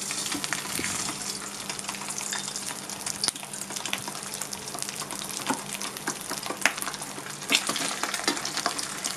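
Mackerel frying in hot oil: a steady sizzle with frequent crackling pops, starting sharply as the fish is lowered in.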